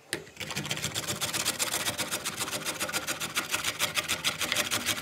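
White radish (mooli) being grated by hand on a metal box grater: quick, even, rasping strokes.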